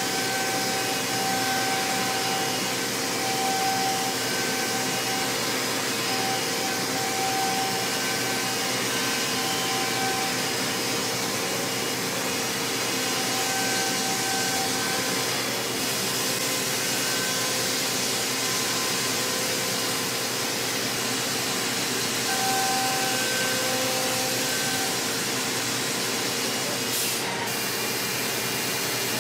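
High-speed CNC milling of aluminium on a five-axis machine: a steady whirring hiss from the spindle and cutting, with high-pitched tones that come and go as the tool works.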